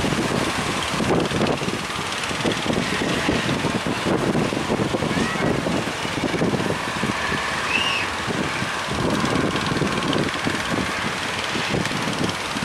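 Strong wind buffeting the microphone in irregular gusts over a steady rush of sea noise.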